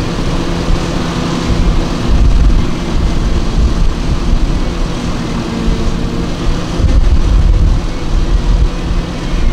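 Heavy farm machinery running: diesel engines of a forage harvester and its haul tractors chopping grass, a steady engine drone with deep low rumbles that swell twice, about two and seven seconds in.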